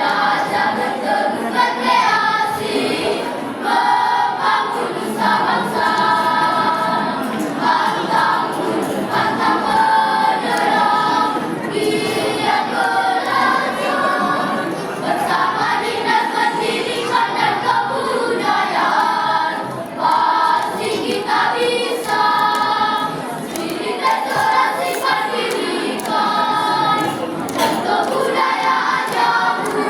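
Children's choir singing, many voices together in held notes, phrase after phrase.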